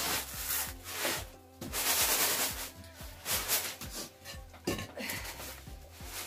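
Rice grains rasping and shushing on a round bamboo winnowing tray as a hand rubs them and the tray is shaken, in repeated bursts of a second or less. Faint background music runs underneath.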